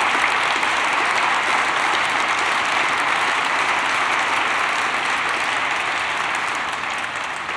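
Large audience applauding steadily, a dense clapping that eases off slightly toward the end.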